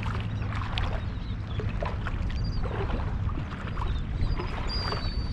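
Shallow water sloshing and splashing around a wader's legs as he walks through it, over a steady low rumble of wind on the microphone. A thin high whistle sounds near the end.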